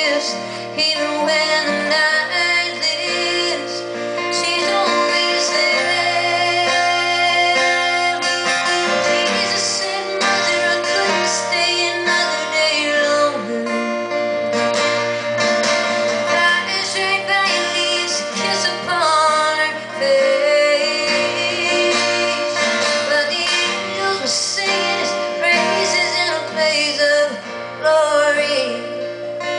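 Live solo song: an acoustic guitar played steadily with a woman's singing voice over it, without clear words.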